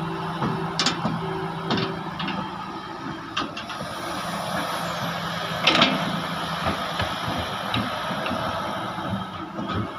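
Heavy excavator's diesel engine running, with several sharp knocks from the machine working; the loudest knock comes nearly six seconds in.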